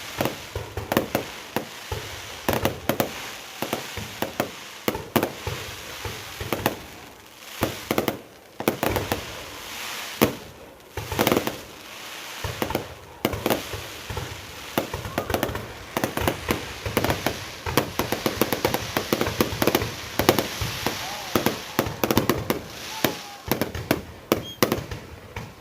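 Fireworks going off: many sharp bangs in quick, irregular succession.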